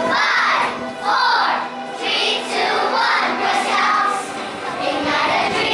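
A group of young girls singing together in unison, high-pitched, in short rising and falling phrases.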